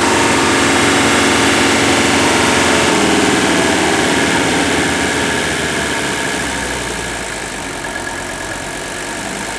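Mercedes W123 turbo diesel's five-cylinder engine running steadily at a raised idle while burning diesel purge cleaner, its speed and loudness easing down about halfway through as the throttle linkage is worked.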